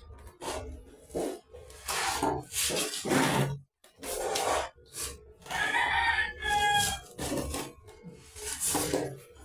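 Repeated scraping and rubbing strokes as a steel trowel and a hand spread cement grout over ceramic wall tiles and press it into the joints. A short pitched sound breaks in about six seconds in.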